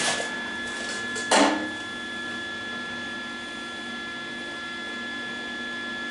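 Steady electrical hum with several fixed tones, typical of a MIG welder's transformer and cooling fan idling between welds, with no arc running. One brief, loud noise about a second and a half in.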